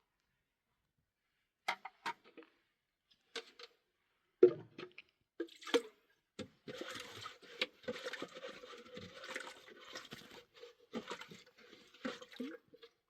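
A few scattered clicks and knocks, then about six seconds of running or pouring water with a steady hiss, stopping near the end.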